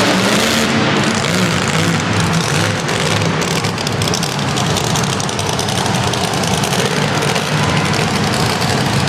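Monster truck engines running loud, their pitch wavering up and down.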